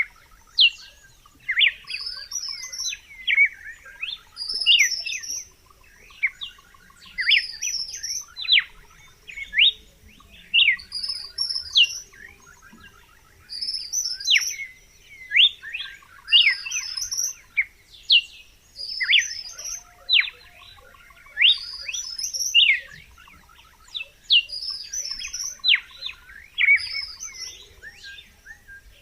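Red-cowled cardinal singing: short, lively phrases repeated over and over every second or two, each made of quick sharp downslurred whistles with a higher twitter on top.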